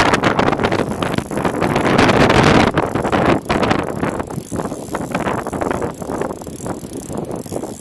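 Wind buffeting the microphone, heaviest in the first few seconds, with the clicking of a large spinning reel being cranked to bring in line against a hooked fish on a bent rod.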